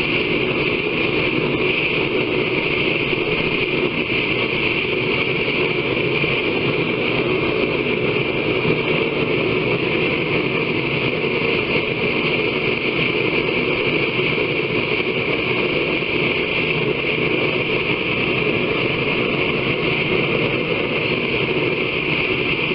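Power grinder running steadily as it grinds the edge of a forged seax blade: a constant hissing whine.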